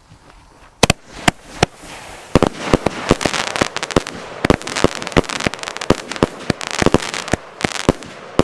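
A Dumbum X-Shape fan-shaped firework battery (category F2) firing. Three single sharp bangs come about a second in, then a fast run of loud bangs with crackling hiss between them. The battery hits hard: "sehr gut gedrückt".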